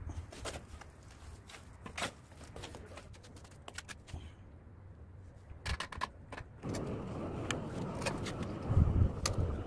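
Steel mason's trowel scraping and clinking against mortar in a plastic tray and on clay brick, in a string of sharp clicks. About two-thirds in, a steady low rumble comes up beneath it, with a few heavy low thumps near the end.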